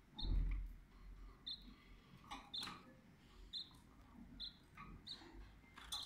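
Canaries giving short, high single chirps, roughly one a second, with light clicks and rustles of birds moving in the cage. A low thump sounds near the start.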